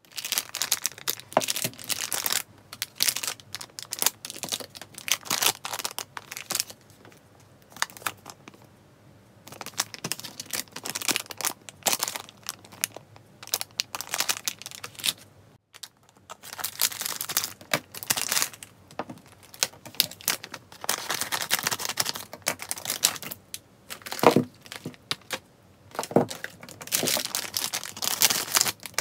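Thin plastic slime packets crinkling as they are handled and torn open by hand, in irregular spells of crackling with short pauses.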